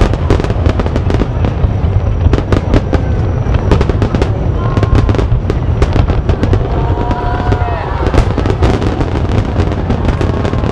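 A dense barrage of aerial fireworks shells bursting, many sharp bangs a second over a continuous low rumble.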